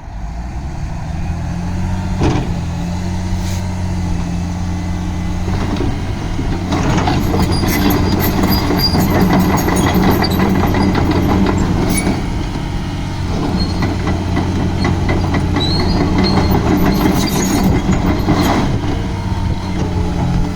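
A Liebherr R944C hydraulic excavator's diesel engine running steadily. Through the middle stretch it grows louder and busier, with knocks and high squeaks as the machine works.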